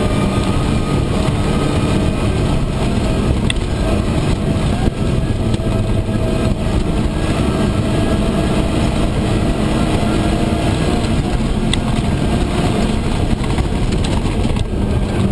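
Steyr-Puch Pinzgauer off-road vehicle driving fast over a rough gravel track, heard from inside the cab: loud, steady engine and drivetrain noise, with a couple of sharp knocks.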